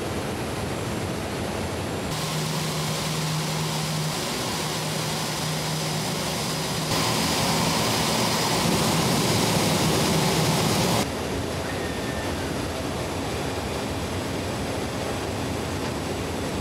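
Airbus A350 XWB's Rolls-Royce Trent XWB turbofan running on the ground during a cold-weather test: a steady rushing jet noise with a low hum underneath. It steps louder about seven seconds in and falls back about eleven seconds in.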